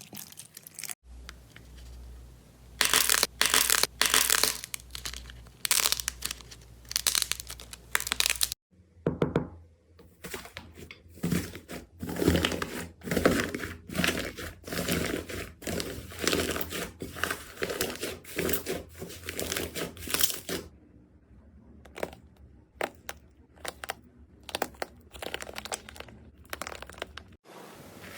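Slime being squeezed and pressed by hand, giving dense runs of crackling, popping and crinkling. Several short clips change abruptly, with the busiest crackling in the first third and the middle and sparser pops near the end.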